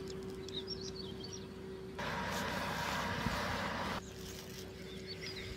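Outdoor ambience: small birds chirping over a steady low hum, with a louder even rushing noise for about two seconds in the middle.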